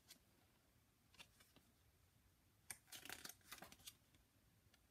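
Faint rustling and flicking of paper pages as a small folded rulebook booklet is leafed through, with a couple of soft flicks about a second in and a short cluster of them around three seconds in.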